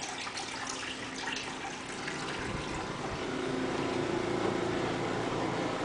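Microwave oven running with a steady rushing noise and a few light clicks. A steady hum comes in about halfway through and it gets a little louder.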